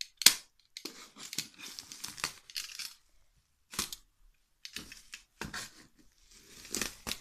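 Utility knife cutting and tearing through a parcel's plastic bag wrapping and taped cardboard: several bursts of rasping tearing with plastic crinkling, and a few sharp clicks, the loudest just after the start.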